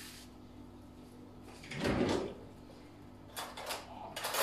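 Kitchen handling noises on a countertop: a single dull thump about two seconds in, then a few light clattering knocks near the end.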